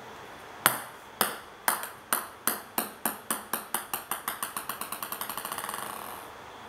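A ping-pong ball dropped onto a wooden floor, bouncing with clicks that come faster and softer until they run together into a quick rattle and stop, about six seconds in.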